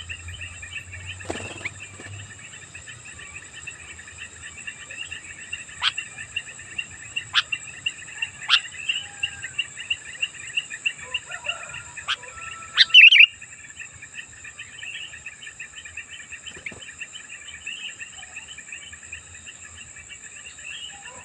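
Sooty-headed bulbuls (kutilang) chattering in a dense, rapid stream of chirps, used as a lure call. It is broken by a few sharper, louder notes, and the loudest short burst of calls comes about two-thirds of the way through. A steady high hiss lies underneath.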